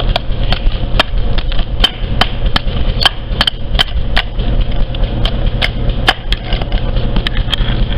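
Hammer striking and chipping away thermite slag and the sand mold around a broken socket extension: a steady run of sharp, ringing blows, about two or three a second.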